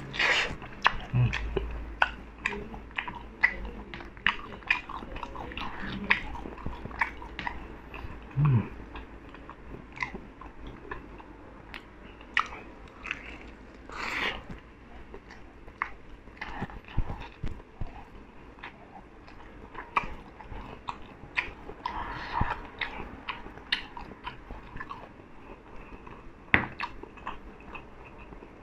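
Close-up chewing and biting into a sauce-coated fried chicken drumstick: irregular wet mouth clicks and smacks with some crunch of the fried skin.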